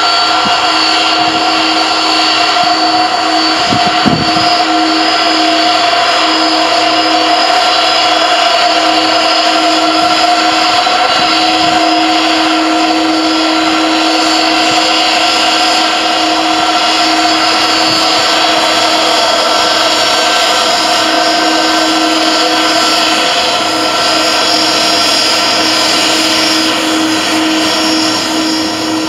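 Airbus A330-300's twin turbofan engines at taxi power as the airliner taxis past: a loud, steady whine with several held tones. A brief thump about four seconds in.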